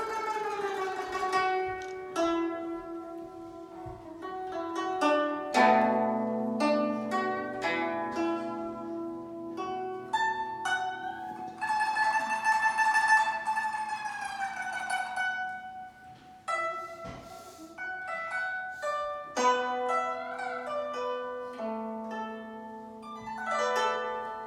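Guzheng played solo: a plucked melody with runs of notes, some held notes bent up and down in pitch after plucking, including a long wavering note about halfway through.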